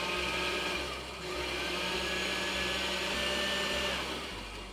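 Small electric food processor running, chopping shelled peas with ricotta and Parmesan into a chunky purée; its motor dips briefly about a second in, then runs on and winds down near the end.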